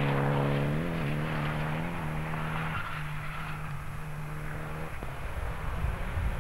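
Rally car engine running hard on a gravel stage, its note stepping in pitch a few times as it changes gear, dying away about five seconds in as the car pulls away.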